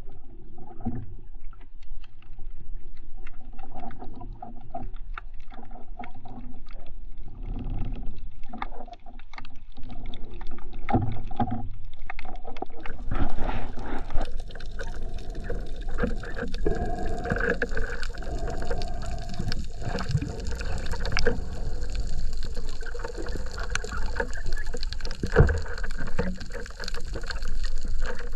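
Water sloshing and gurgling around a camera held underwater by a swimming diver, with scattered clicks and knocks. It grows louder and hissier about halfway through.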